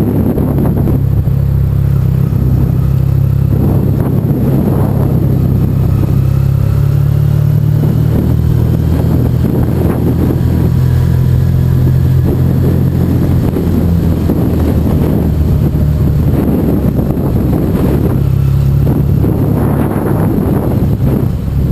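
Yamaha TDM 850's parallel-twin engine running steadily at low town speed, heard close up from the bike, a steady low engine note.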